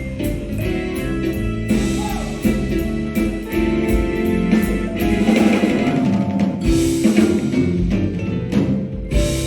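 Jazz band playing live: drum kit, bass and keyboards.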